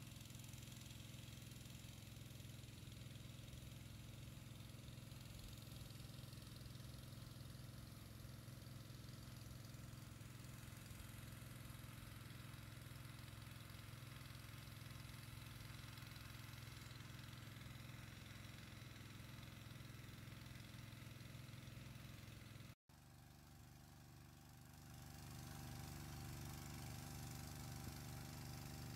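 Faint, steady low hum of a small engine running at a constant speed. Near the end it drops out for an instant, then returns slightly louder.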